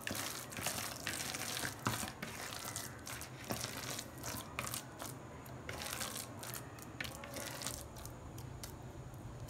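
A hand squeezing and kneading a wet filling of minced chicken, egg, onion and breadcrumbs in a plastic bowl, making quiet, irregular squelching and crushing sounds.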